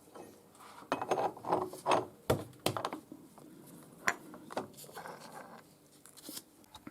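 Metal parts and tools being handled: a run of clicks, knocks and rattling clatter, busiest about one to three seconds in, then a few scattered knocks.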